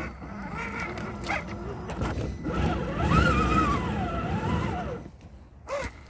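RC crawler's electric motor and geartrain whining, the pitch rising and falling with the throttle as the truck drives over a dirt track, with a rumble from the tyres. It drops away about five seconds in.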